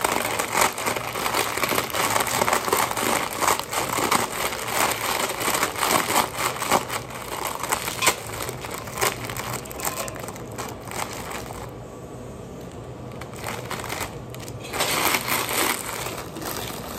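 A printed plastic packet crinkling and crackling as it is squeezed, crushed and shaken in the hands, with a quieter stretch about two-thirds of the way through.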